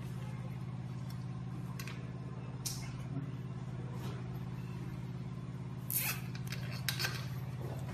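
Short plastic clicks and rustles of cable connectors being handled and plugged together, over a steady low hum.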